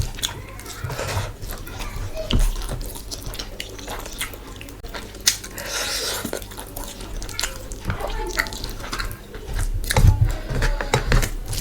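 Close-miked wet eating sounds: chewing and lip smacks, with many short sticky clicks and a few heavier low thuds near the end.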